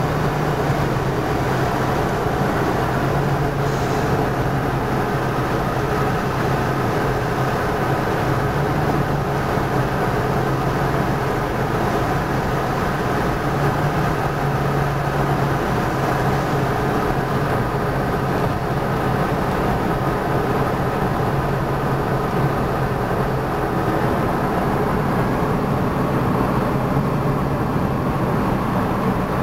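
Steady road noise inside a moving car's cabin: a constant low hum from the engine and tyres under a wide hiss of driving noise.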